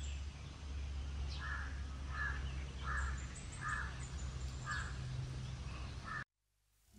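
A crow cawing six times, about once a second, over a low steady rumble; the sound cuts off abruptly shortly before the end.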